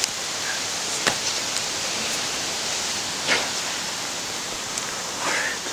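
Steady, even hiss with a few faint clicks, about a second and about three seconds in.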